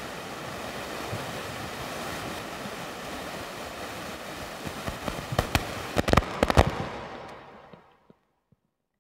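Audience applauding after a performance, a steady patter with a few sharper, louder claps about five to seven seconds in, then fading out.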